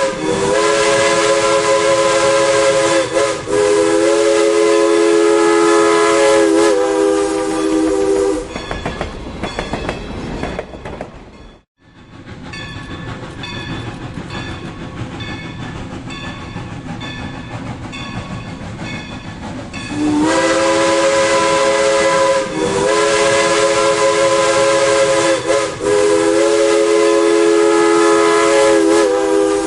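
Steam locomotive's chime whistle blowing a chord of several tones in long blasts, with short breaks between them. In between, the train rolls past with wheels clicking over the rail joints, and the sound drops out for a moment near the middle. The whistle sounds again for the last ten seconds.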